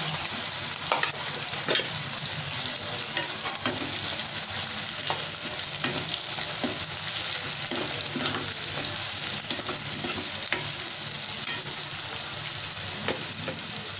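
Sliced onions sizzling in hot oil with cumin seeds, freshly added for frying. A steel spoon stirs them, clicking and scraping against the pan now and then over a steady hiss.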